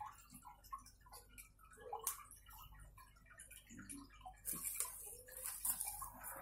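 Small clicks and rustling as hands work through the fronds of a potted maidenhair fern, with a sharper click about two seconds in. About four and a half seconds in, a longer leafy rustle as the pot is turned and the fronds sway.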